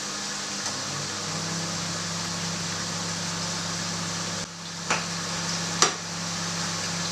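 Pan of salt cod in sauce sizzling and simmering on the hob over a low steady hum, with two sharp clinks of a metal slotted spoon against the pan near the end as it is stirred.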